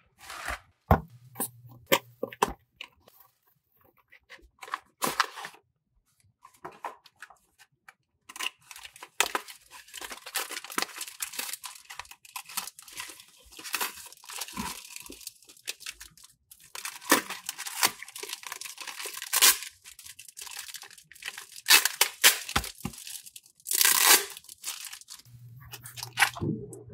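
Packaging being opened by hand: a cardboard booster box slit with a hobby knife and a black foil bag torn and crinkled open, in long stretches of tearing and rustling. Scattered clicks and taps of handling come first.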